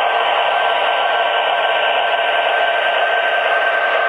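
Several MTH model SD70 diesel locomotives running together under a heavy load: a steady rushing whir with a constant high-pitched whine running through it.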